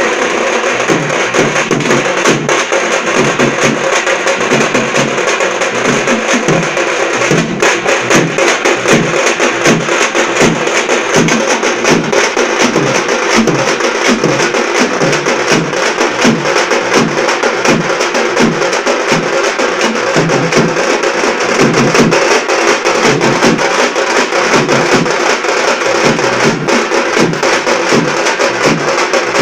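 A small drum band playing together: a large frame drum and several shoulder-slung snare drums beat out a fast, steady rhythm over a regular low pulse.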